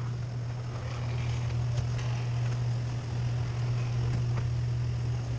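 Garage door opener motor running steadily as the door closes down onto a 2x4 laid across the threshold in a reversal safety test; the door fails the test, not reversing on the board.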